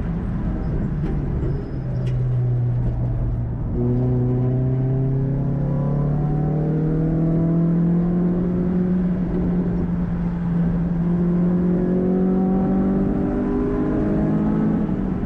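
Renault Clio 182's 2.0-litre four-cylinder engine, with a cone-filter intake, heard from inside the cabin under hard acceleration. About two seconds in there is a brief lift and the engine pitch drops with a gear change, then it climbs steadily as the car pulls through the gear.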